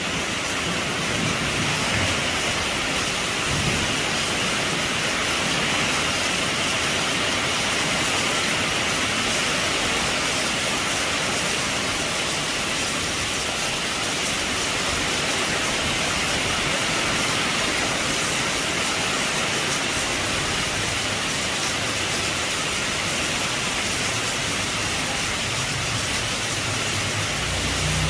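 Heavy rain falling steadily on a roof, an even hiss of drops with no let-up. A low rumble of thunder begins near the end.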